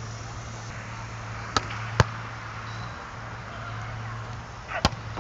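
A beach volleyball struck three times by players' hands and forearms during passing: sharp slaps about one and a half seconds, two seconds and nearly five seconds in, the second the loudest, over a steady low hum.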